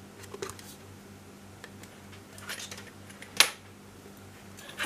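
Light rustling and small clicks from a cardboard-and-plastic diecast model box being handled, with one sharp click about two-thirds of the way through, over a faint steady hum.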